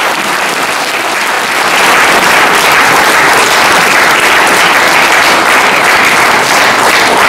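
Audience applauding, a dense patter of many hands clapping that grows louder a little under two seconds in and then holds steady.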